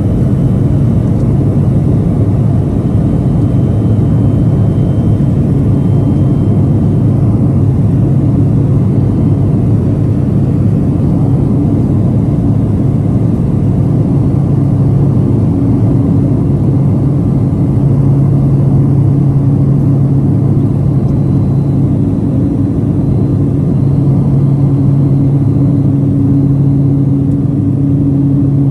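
Pilatus PC-12's single turboprop engine at takeoff power, heard inside the cabin: a steady, loud drone with a low hum, through the takeoff roll and climb-out.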